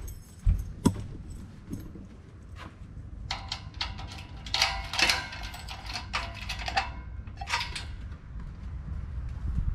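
Metal security gate being unlocked by hand and opened. A few sharp clicks from the lock come first, then a longer spell of metallic clicking and rattling of the bars and latch, and a shorter rattle near the end as the gate swings open.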